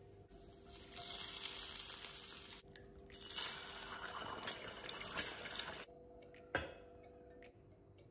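Hot oil sizzling and crackling around an egg frying in a stainless-steel pan, in two stretches with a short break, stopping abruptly about six seconds in. A single soft knock follows.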